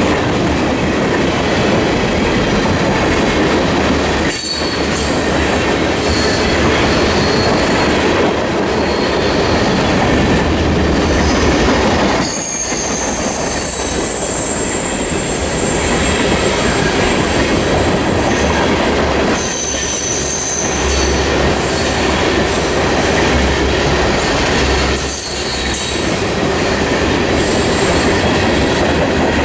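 Empty ethanol tank cars rolling past at speed: a steady rumble and rattle of wheels on rail, with high-pitched wheel squeal that comes and goes. The loudness dips briefly about four times.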